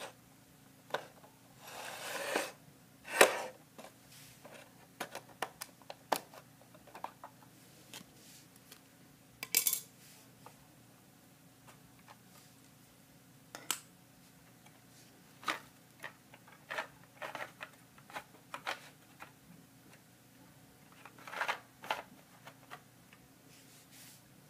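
Plastic Lego bricks clicking and knocking as a small brick-built garbage truck is handled and its body opened, with a few short rustles of crumpled tissue paper being emptied out. The loudest knock comes about three seconds in.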